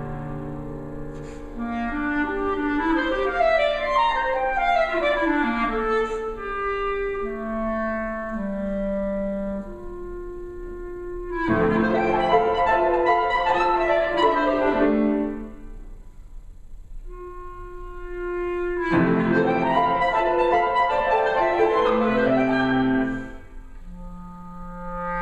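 Clarinet and piano duo playing a contemporary classical piece. Sustained clarinet lines run over the piano, which comes in with loud, dense chords about halfway through and again near the end, with a quieter stretch between them.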